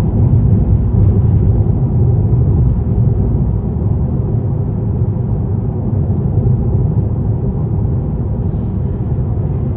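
Steady low rumble of a car driving at highway speed, heard from inside the cabin: tyre, road and engine noise, a little louder in the first few seconds.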